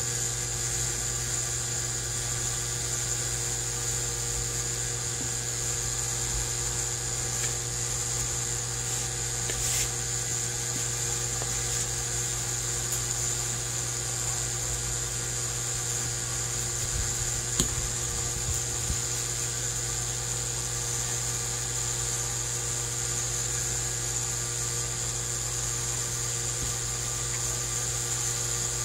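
A steady mechanical hum with a high-pitched whine over a low drone, level throughout, with a few light taps and one sharp tap a little past halfway.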